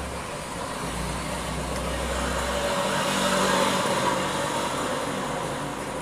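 Steady rushing background noise that swells to a peak a little past the middle and then eases off, with a low hum under it that drops away about two and a half seconds in.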